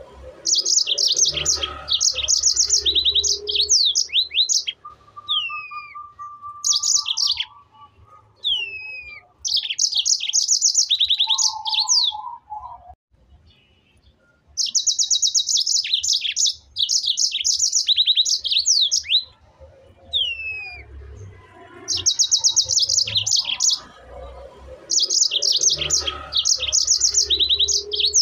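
A small songbird singing: bursts of very rapid high trills, each one to four seconds long, with single downward-sliding notes between them.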